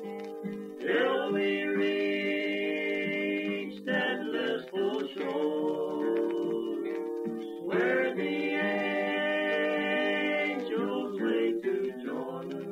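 Several voices singing together in harmony, with long held notes in phrases a few seconds long and light string-band backing, from a 1948 radio recording with a thin, narrow-band sound.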